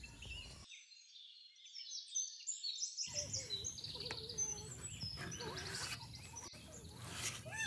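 Small birds chirping and calling in quick, overlapping phrases over a low outdoor background noise.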